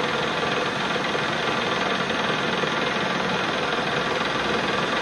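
Metal lathe running steadily, spinning a Bosch 80 amp alternator rotor while a tool bit skims its copper slip rings.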